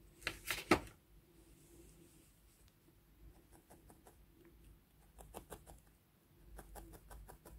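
Felting needle stabbing into wool again and again, a run of faint quick ticks that come thicker toward the end, after two sharp clicks about half a second in.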